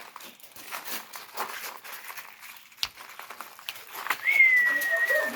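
Great Dane puppy giving one thin, high whine near the end, held about a second and falling slightly in pitch. Before it come scattered light clicks and scratches.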